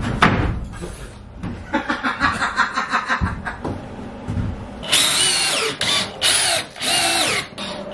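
DeWalt cordless drill-driver driving screws through a plywood subfloor sheet into the wooden floor framing, run in short trigger bursts: a quieter rattling run, then four loud bursts in the second half with a wavering motor whine. A sharp wooden knock at the very start as the sheet is set down.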